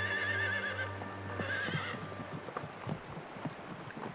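A horse whinnying twice, a longer wavering call and then a shorter one, followed by hooves clopping unevenly. Steady background music fades out under the first whinny.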